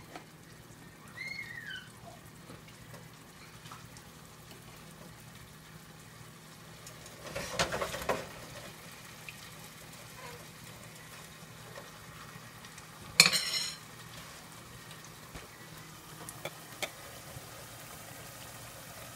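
Food frying in hot oil in a pan, a faint steady sizzle, with a utensil clattering against the pan about halfway through and one sharp metal clank a few seconds later.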